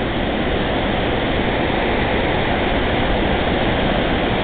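Steady rushing of fast-flowing river water below a dam.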